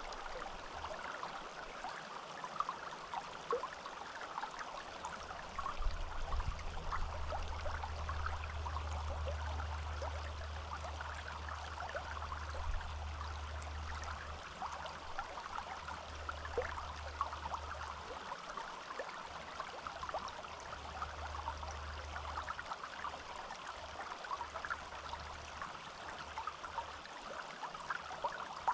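Forest stream flowing: a steady rush of water thick with small bubbling splashes. A low rumble comes in for a while through the middle.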